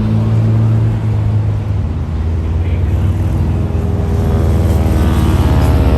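North American AT-6 Texan's Pratt & Whitney R-1340 Wasp radial engine and propeller droning in flight, the pitch dropping a little about two seconds in.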